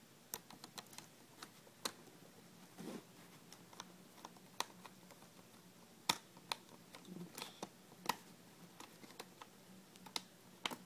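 Irregular sharp plastic clicks and taps from a replacement SteelSeries laptop keyboard as its keys and edges are pressed down to seat and align it in the laptop's chassis.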